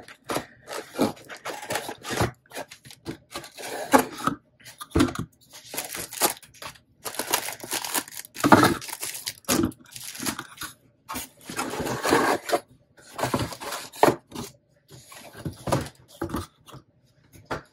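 Clear plastic packaging crinkling and paper and cardboard rustling as stationery packets are pulled out of a cardboard subscription box, in irregular bursts with short quiet gaps.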